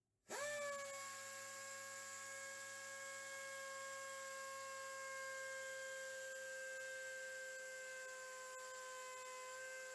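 Air-powered orbital palm sander running free: it starts about a third of a second in, its pitch rising quickly and then holding a steady whine over the hiss of exhaust air.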